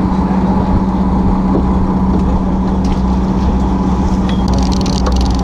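Fishing boat's engine running steadily, a constant low hum and rumble, with faint clicking near the end.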